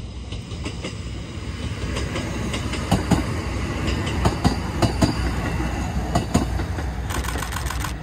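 Diesel railcar passing close by, getting louder over the first two seconds, its wheels clacking sharply over rail joints several times from about three seconds in.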